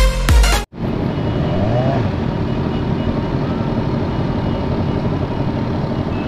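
Electronic dance music cuts off abruptly under a second in. It gives way to the steady running rumble of many motorcycle engines idling close together in a stopped pack, with a brief rise and fall in engine pitch about two seconds in.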